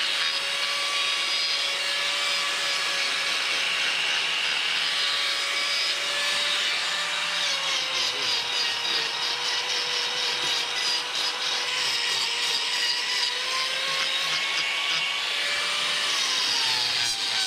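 Electric angle grinder grinding down a cow's hoof during hoof trimming: a steady motor whine over a rasping hiss of the disc on hoof horn. The whine's pitch drops about halfway through and falls again near the end.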